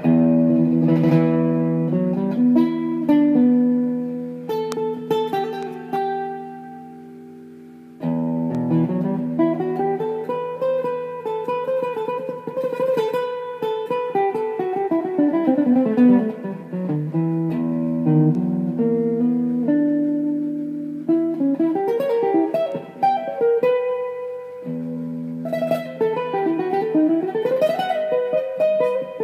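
Yamaha silent guitar, a nylon-string instrument, played solo: chords and melodic runs, with one chord left ringing to fade out for a few seconds before the playing picks up again about eight seconds in.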